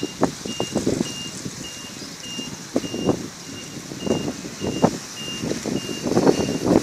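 A high electronic beep repeats steadily, a little under twice a second, like a vehicle's reversing alarm. Irregular low thumps and rustles are louder on top of it.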